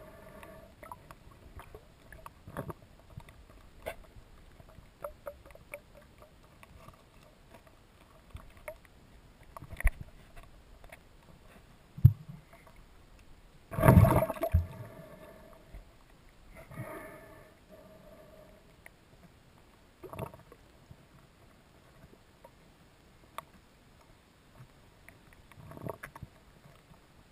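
Underwater sound picked up by a submerged camera: water gurgling and sloshing against the housing, with scattered clicks and knocks. The loudest is a rushing burst about 14 seconds in, with smaller ones every few seconds.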